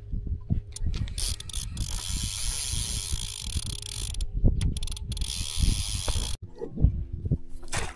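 Fishing reel being wound in while playing a carp: mechanical whirring and clicking of the reel with repeated low knocks of handling. A rushing hiss runs through the middle and breaks off suddenly about six seconds in.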